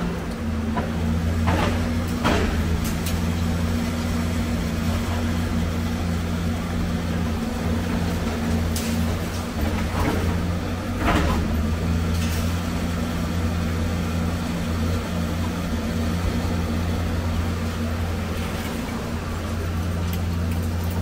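Excavator engine running at a steady pitch, with a few sharp clanks of scrap metal being handled, mostly in the first half.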